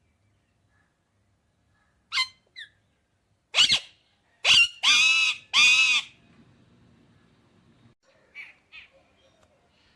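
Parrot calling: a short call, then a run of loud calls, the last two drawn out, and two faint calls near the end.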